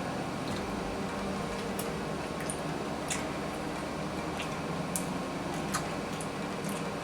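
Quiet eating: a handful of faint, short clicks of cutlery against plates over a steady room hum.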